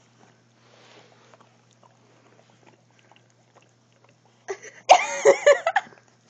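Boxer dog licking whipped cream off a girl's face: faint, scattered wet licking and smacking sounds, then, about four and a half seconds in, a loud burst of laughter from the girl.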